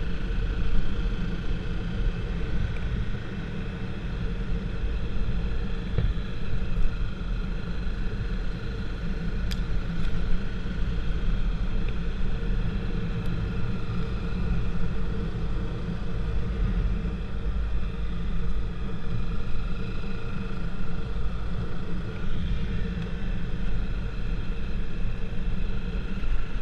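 A vehicle running at a steady speed: a continuous low rumble with an even, unchanging drone above it, and a few faint clicks about a third of the way through.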